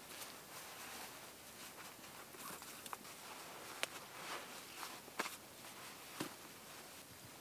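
Soft rustling of someone moving on dry leaves and bedding, with a few sharp pops from a small wood fire crackling in the second half.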